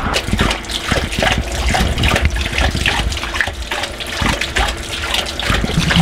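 Water running steadily from an outdoor tap onto stone paving.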